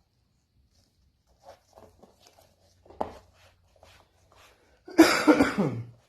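Faint light taps and scrapes, then a person coughs once about five seconds in, a loud burst lasting about a second that drops in pitch as it ends.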